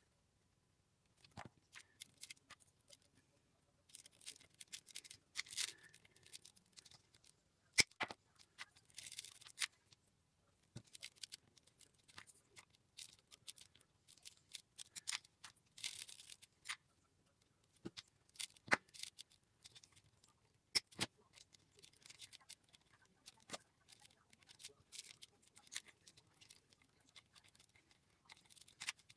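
Rolled paper tubes rustling and clicking as fingers and a thin wooden stick work their ends into the weave of a paper basket: faint, irregular ticks, scratches and brief rustles.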